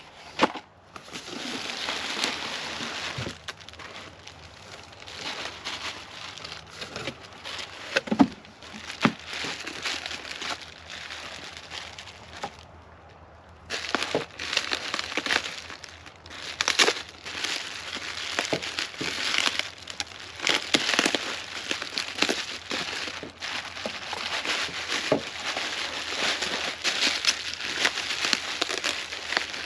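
Packaging being unwrapped by hand: crinkling and rustling with many small clicks and snaps, pausing briefly about halfway through.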